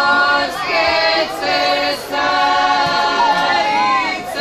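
A group of women singing unaccompanied in the traditional Herzegovinian bronđa style: loud, held notes sung together with wavering, sliding ornaments, in short phrases broken by brief breaths.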